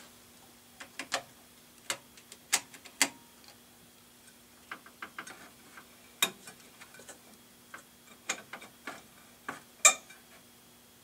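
Irregular sharp clicks and taps from parts and tools being handled during hands-on repair work on a jukebox's lighting, the loudest click about ten seconds in, over a faint steady hum.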